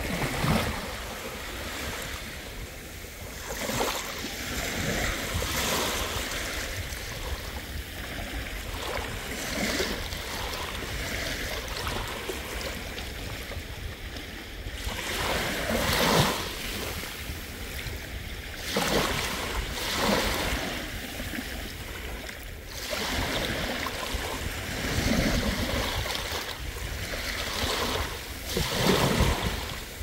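Sea waves breaking and washing up a beach, the surf swelling to a peak every few seconds and falling back, over a constant low rumble.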